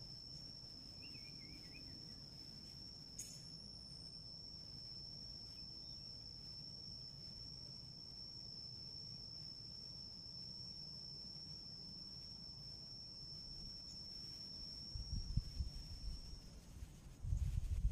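An insect drone: one steady high-pitched tone that stops near the end. Low rumbling gusts of wind buffet the microphone in the last few seconds.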